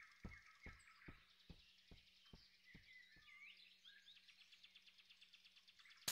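Faint forest ambience of birds chirping, with a short rapid trill. Soft regular taps, about two or three a second, slow down and fade out within the first three seconds.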